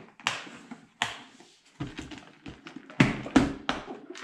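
Clear plastic compartment boxes of fishing flies being handled, stacked and set down on a table: a string of separate sharp plastic clicks and knocks, the loudest about three seconds in.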